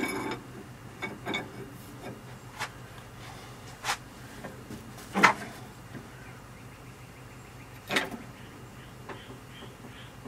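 Metal tools being picked up and handled: scattered clinks and knocks a second or more apart, the loudest about five seconds in, over a low steady hum.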